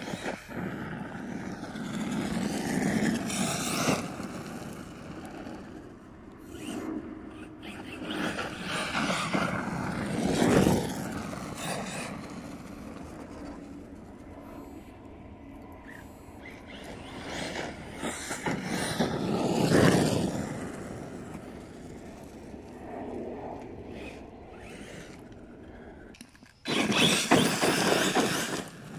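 Arrma Kraton 6S RC truck driving hard on a dirt and gravel track: its brushless electric motor whines up and down in pitch with the throttle while the tyres scrape and spray gravel. The sound swells several times as the truck comes close, loudest near the end as it passes, kicking up dust.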